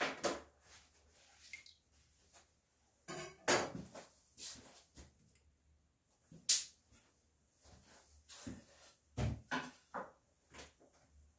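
Scattered knocks, clicks and short scrapes of objects being handled on a hard work surface. The sharpest click comes about six and a half seconds in.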